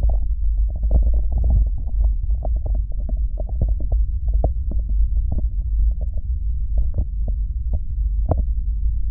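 Fingers massaging thick Vaseline over the silicone ears of a 3Dio binaural microphone: a continuous deep, muffled rumble with many small sticky crackles.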